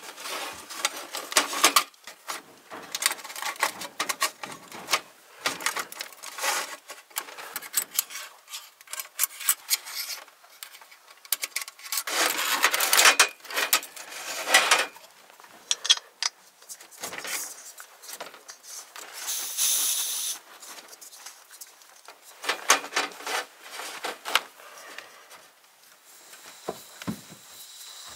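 Thin steel panels of a folding Firebox Nano stove being unfolded, slid and clicked into place on a steel mesh table, with a gas burner insert and canister being fitted. Irregular metal clinks, scrapes and rubbing, with a louder stretch of scraping about halfway through.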